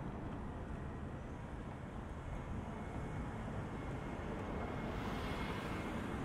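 Jet engine noise from a departing Airbus A320neo's Pratt & Whitney PW1100G geared turbofans, heard from the ground as the airliner climbs away: a steady distant rumble with a faint thin whine, and a brief swell of hiss about five seconds in.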